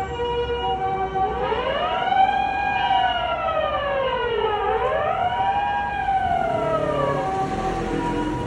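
Japanese ambulance's two-tone "pee-po" siren, joined about a second in by a rising and falling wail that sweeps up and down twice. The two-tone carries on alone near the end.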